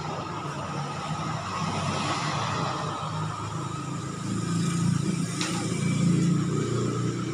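A steady mechanical rumble, like a running engine, with a faint click about five seconds in as the plastic evaporator housing is handled.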